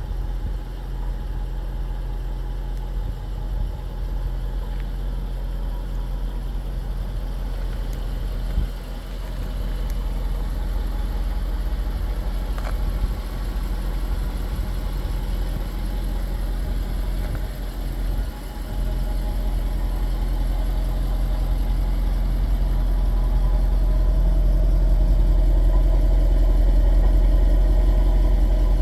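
Jaguar XKR's 5.0-litre supercharged V8 idling steadily, a low even hum that grows louder in the last several seconds.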